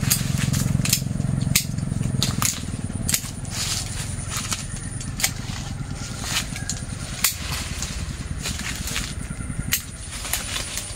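Irregular sharp clicks and snaps of a jackfruit tree's twigs and leaves being handled and pruned by hand, a few a second, over a low rumble that fades after the first couple of seconds.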